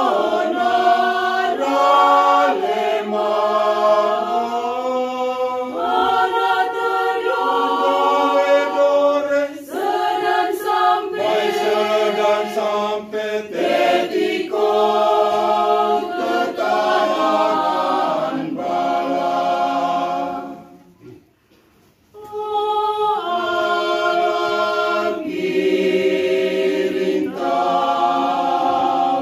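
Mixed choir of men and women singing a hymn without instruments, in long held phrases. The singing stops for about a second and a half about two-thirds of the way through, then the next phrase begins.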